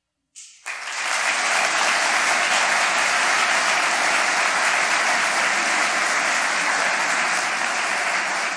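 Audience applauding: after a brief silence, clapping starts about half a second in and holds steady and loud.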